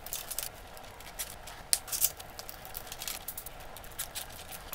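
Insulated electrical wires being handled and bunched together by hand in a plastic junction box: scattered light clicks and rustles of wire insulation against plastic, with a couple of louder clicks about two seconds in.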